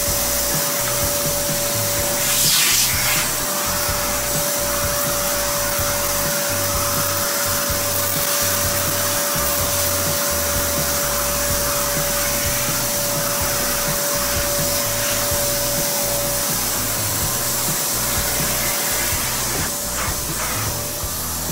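Homstar HS-VC2300 Turbo Power vacuum cleaner running steadily: a constant rush of air with a steady whine over it, and a short louder surge about two and a half seconds in.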